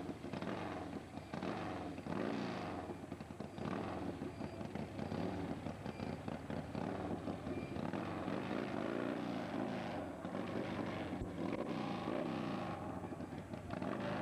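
Drag-racing motorcycle engine running at the starting line, its pitch rising and falling again and again as the throttle is blipped.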